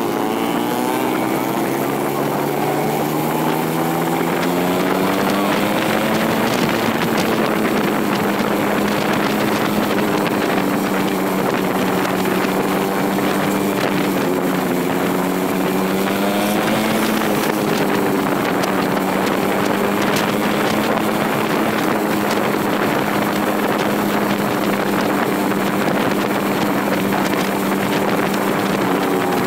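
Yamaha FZ150's single-cylinder engine running on the road, its pitch climbing as it accelerates in the first few seconds, then holding steady at cruising speed with a brief dip and pick-up about halfway through. Wind noise on the microphone.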